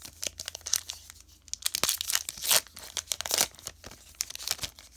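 The foil wrapper of a Pokémon booster pack being torn open and crinkled: an irregular run of crackles and rips, loudest about two and a half seconds in.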